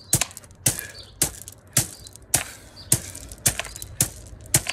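Hands striking down into a drum of gravel in alternating palm heel strikes, a short sharp impact on the stones about twice a second, steady and even.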